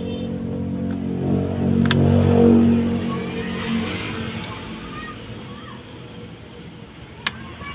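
A motor vehicle's engine passing by, swelling to its loudest about two seconds in and fading out by about four seconds. Over it come a few sharp clicks, as the plastic back cover of a Samsung Galaxy A10s is pried loose from its frame.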